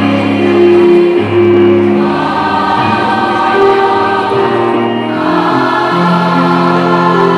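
School choir singing in harmony, several voice parts holding long notes together, moving to a new chord about five seconds in.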